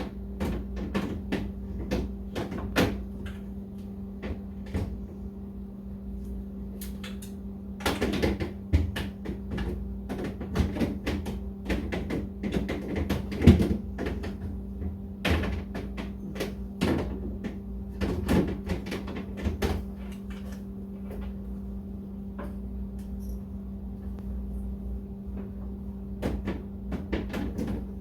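Repeated knocks, clicks and clatters of hard objects being handled and set down, irregular and busiest in the middle, over a steady low hum.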